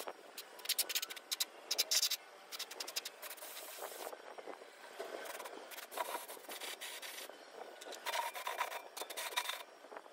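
Compressed-air paint spray gun hissing in many short bursts as the trigger is pulled again and again, spraying basecoat.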